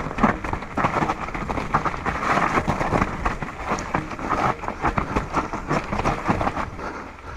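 Mountain bike tyres crunching over dry dirt, loose stones and roots on a rough descent, with a steady run of rattles and knocks from the bike and a low rumble underneath.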